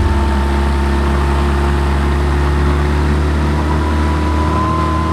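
Outboard motor running steadily under way, a deep hum with a thin whine above it that edges up slightly near the end, over the rush of the boat's wake.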